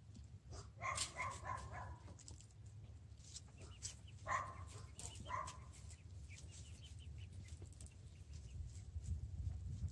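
A small dog barking: a quick run of yaps about a second in, then two single barks a second apart around the middle, over a steady low rumble.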